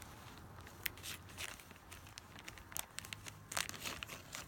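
A few faint, scattered crinkles and clicks of a Happy Meal toy's plastic packaging being handled, over a low steady room hum.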